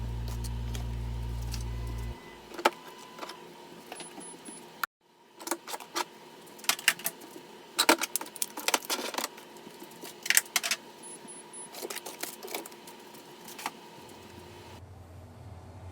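Scattered light clicks and clinks of small objects and containers being handled and set down, over a dozen separate strikes, with background music ending about two seconds in.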